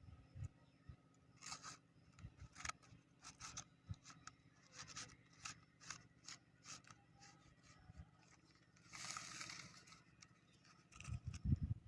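Scissors cutting cardboard in a run of short, irregular snips, with one longer cutting or scraping stroke near the end. Quiet throughout.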